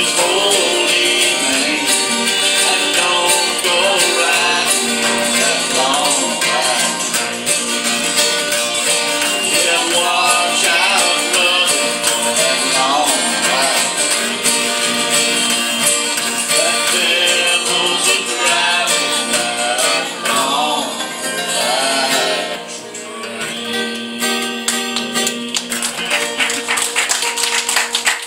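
Country song with guitar and light percussion, sung into a microphone, the singing ending about three quarters of the way through as the accompaniment winds down. Clapping starts near the end.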